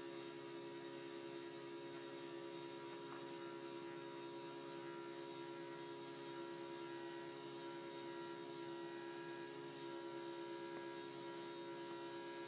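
Faint, steady electrical hum made of several steady tones over a light hiss, unchanging throughout.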